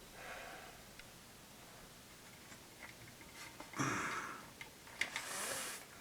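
Light scattered clicks and handling noise from test leads and probes being moved about on a radio chassis, with a short louder rustle about four seconds in and two sharp clicks followed by a brief hiss near the end.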